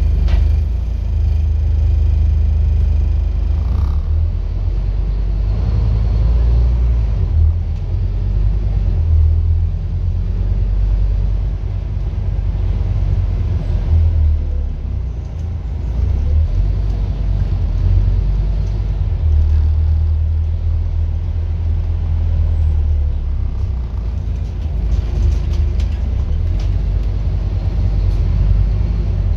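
Scania N230UD double-decker bus with its five-cylinder diesel engine running under way, heard from inside the passenger saloon. It is a deep, continuous rumble that rises and falls as the bus drives.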